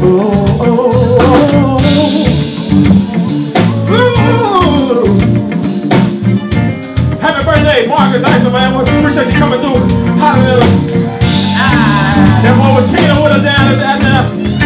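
Live band playing: a man singing into a microphone over electric guitar, bass and drum kit.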